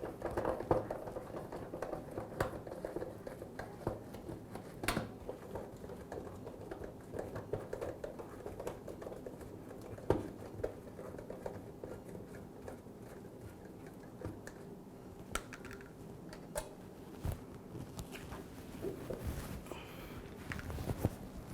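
Faint scattered clicks and light knocks of hand work on a dishwasher's sump, taking out the screws that fix it to the base, with a louder knock about halfway through. Under them runs a low steady hum.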